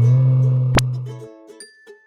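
A low, steady motor-like hum that cuts off abruptly a little over a second in, with a single sharp click partway through. After it come sparse, light tinkling music notes.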